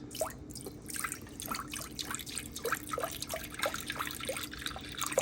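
Beef stock being poured into a crock pot: a continuous run of liquid splashing and short rising gurgles, over a faint steady hum, with a knock near the end.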